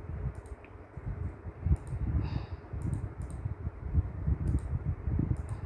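Scattered sharp clicks of a computer mouse and keyboard, about eight in all and irregularly spaced, over low dull thumping.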